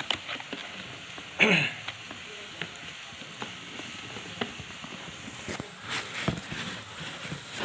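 Cardboard box being handled and its flaps opened, with clicks and rustles and a short scrape about a second and a half in. Crinkling of the plastic wrap around the pot inside comes in near the end.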